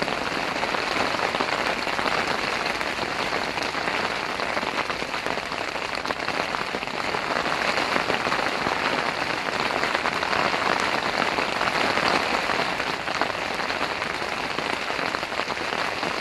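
Heavy rain falling steadily on a tent, a dense, even hiss of drops.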